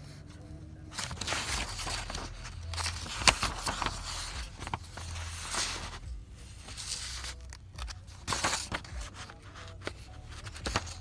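Sheets of printer paper rustling and scraping as they are handled and turned, with irregular sharp clicks and a low rumble of handling noise.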